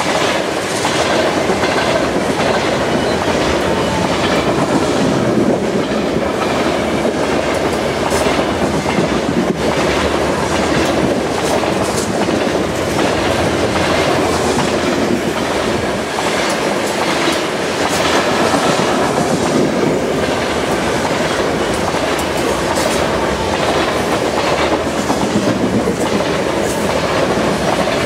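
Covered hopper cars of a freight train rolling past at speed. The wheels give a steady, irregular clickety-clack over the rail joints, over continuous wheel-on-rail rumble.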